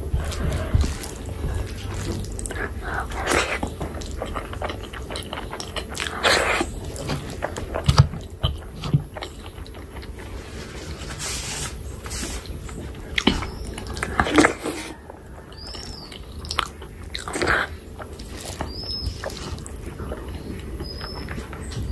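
Close-miked eating: wet chewing and mouth sounds on curry-soaked rice and chicken skin, with several louder smacks and bites. Squelches of fingers kneading the oily curry and rice come in between.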